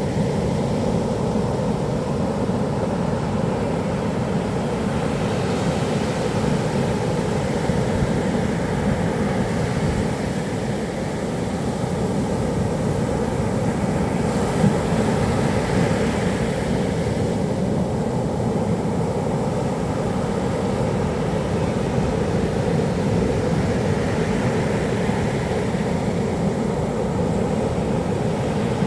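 Rough typhoon surf on a beach: a steady low rumble of the sea, with the hiss of breaking waves swelling and fading every several seconds.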